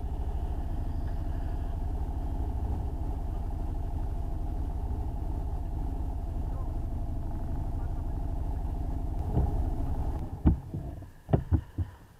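Small motorcycle engine idling steadily, cutting off about ten seconds in. Then come a few sharp knocks and rattles as the handlebar-mounted camera is handled.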